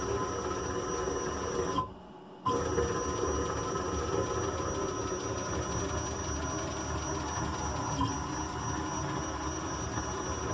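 CNC router machine running with a steady electrical whine of several constant tones over a hum. The sound cuts out for about half a second near two seconds in, then resumes unchanged.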